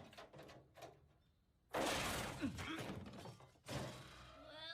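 A few light, evenly spaced chopping ticks, like a knife on a cutting board, then a brief silence and a sudden loud crash that dies away over about two seconds, followed by a second bang.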